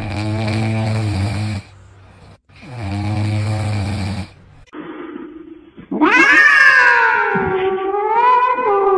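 A sleeping French bulldog puppy snoring: two long breaths. Then a cat yowling loudly, one long call that sweeps down and wavers up and down, starting about six seconds in.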